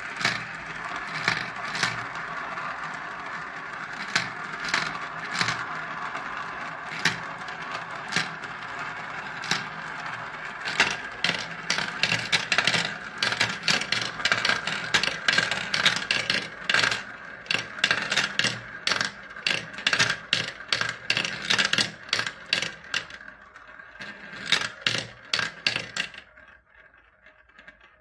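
Balls rolling around the plastic funnel bowls of a toy marble run: a steady rolling rattle with many sharp clicks as they knock together and drop through the plastic tubes and tracks. The clicks come thicker through the middle, and about two seconds before the end the rolling dies away, leaving a few last clicks.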